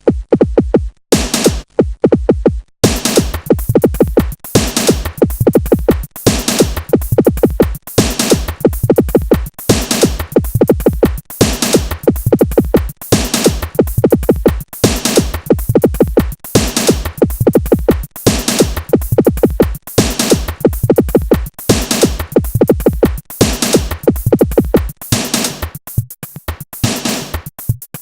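Electronic dance music built on a fast, driving drum-machine beat with synthesizer. It comes in stop-start for the first few seconds before the full beat settles in, and the bass drops away near the end.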